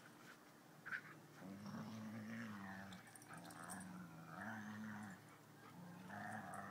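Dogs growling in play while tugging a stick between them: low, drawn-out growls lasting one to two seconds each, with short breaks. A short knock comes about a second in.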